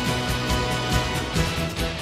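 Background music with a quick, steady drum beat.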